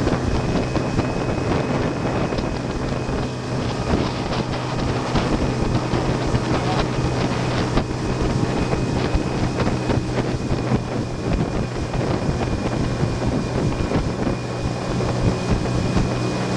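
Small open motorboat's engine running with a steady low hum at cruising speed, mixed with wind buffeting the microphone and water rushing past the hull.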